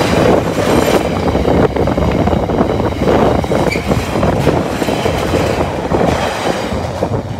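Container flat wagons of a freight train rolling past close by over a level crossing: a loud, steady rumble of wheels on rails with repeated irregular knocks as the wheels pass.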